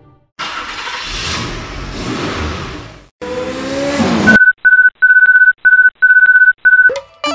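Cartoon sound effect of a racing car speeding past: a rushing noise, then an engine note that swoops up and down in pitch. It is followed by six short electronic beeps at one pitch. A plucked guitar tune begins near the end.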